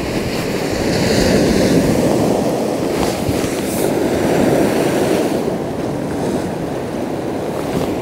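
Sea surf washing and breaking against the rocks as a steady, loud rush that swells a little about a second in and again around four seconds, with wind on the microphone.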